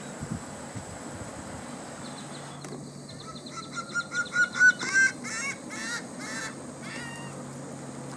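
Laughing gull giving its long call. About three seconds in comes a run of short, quickening notes that grow louder, then a few longer drawn-out notes that fall away, ending about seven seconds in.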